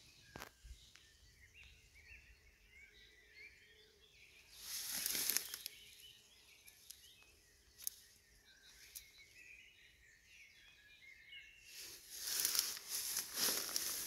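Small birds chirping and twittering in the distance, with two swells of rustling noise, one about five seconds in and a longer one near the end.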